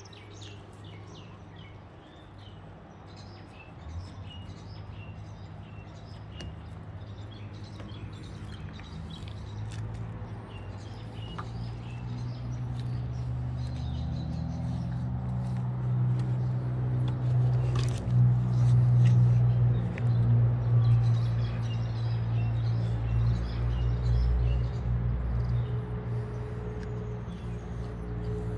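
Small birds chirping in short, repeated calls, under a low, steady hum that swells from about eight seconds in and is loudest about two-thirds of the way through.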